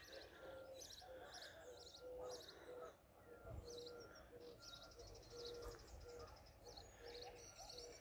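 Faint birdsong in open countryside: small birds give short high chirps over a low whistled note repeated about twice a second.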